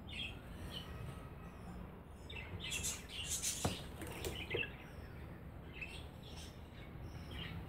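Budgerigars chirping: scattered short, high chirps, busiest a few seconds in.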